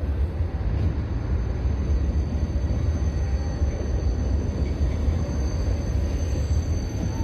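Tram running along the track: a steady low rumble with a thin high whine above it.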